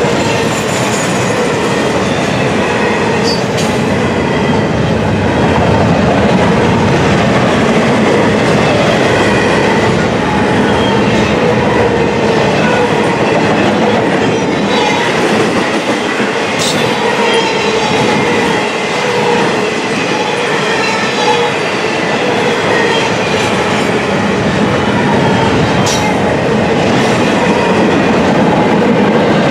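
Double-stack intermodal container cars rolling past close by: a steady, loud rumble and clatter of steel wheels on the rails, with a couple of sharp clicks.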